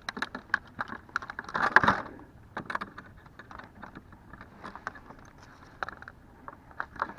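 Irregular small clicks and rattles of fishing gear being handled, with a louder scraping rustle just under two seconds in.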